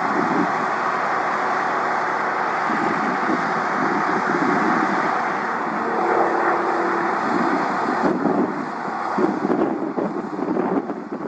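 Steady engine noise from an aircraft, with wind buffeting the microphone.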